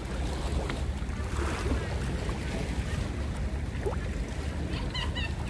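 A steady low rumble out on open water, with a few short high chirps about five seconds in.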